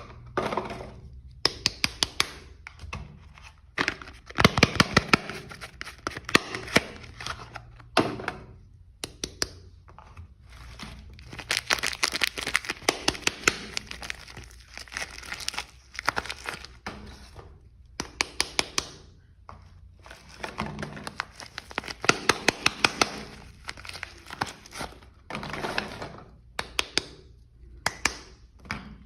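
Soap packaging being unwrapped by hand: bursts of crinkling and tearing wrapper, broken up by many sharp clicks and crackles.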